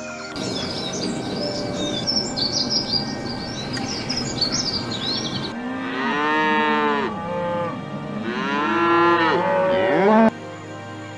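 Small songbird twittering in rapid high chirps, then Holstein-Friesian cows mooing twice. Each moo is a long call that rises and falls, and the second cuts off abruptly.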